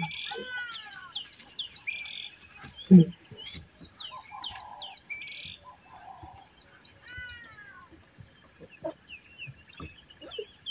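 A lioness gives a low contact call about three seconds in, with shorter calls near the end as she calls for her cubs. Birds chirp and sing throughout in the background.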